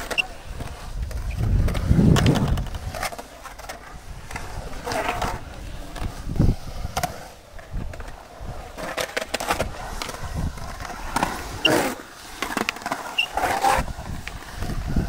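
Skateboard wheels rolling and carving around a concrete bowl, the rumble swelling and fading as the rider drops in and pumps across the walls, with several sharp clacks of the board hitting the concrete and coping.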